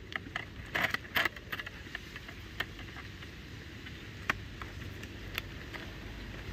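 Thin metal wire scraping and clicking against a wire-mesh cage trap: a cluster of rattling clicks about a second in, then a few single sharp ticks, over a steady low rumble.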